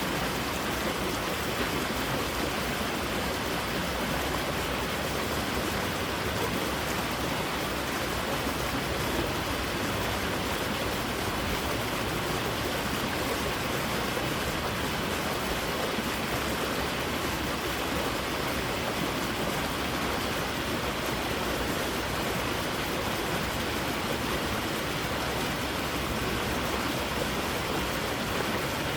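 Creek water rushing over rocks, a steady, even rush of running water.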